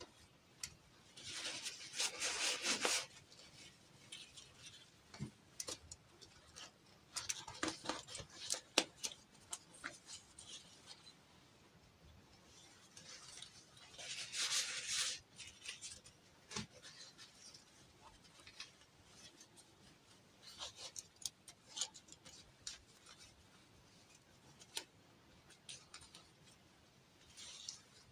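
Small toy packaging being handled and unwrapped up close: three spells of rustling, with scattered light clicks and taps between them.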